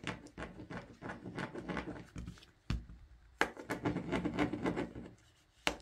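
Hands working a ball of craft clay on a tabletop, pushing a marker down through its centre to make a donut hole: soft rubbing and handling noises with scattered taps and knocks on the table, the sharpest a little under three seconds in, again about half a second later, and near the end.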